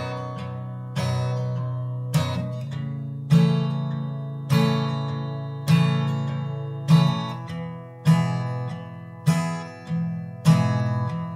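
Acoustic guitar strumming a song intro: slow, steady strokes about once every second, each chord left to ring out.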